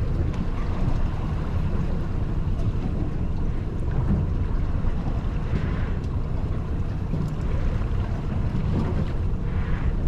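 Honda outboard motor running steadily as a low rumble, with wind buffeting the microphone and sea water washing against the aluminium hull.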